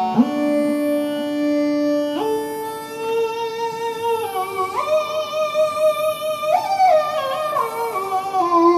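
Roland GAIA SH-01 synthesizer played on its keyboard: sustained chords that change every couple of seconds, with a wavering vibrato in the upper notes midway and quicker note changes near the end.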